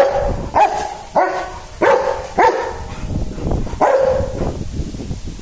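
Rottweiler barking: six sharp barks about two a second, with a short pause after the fifth.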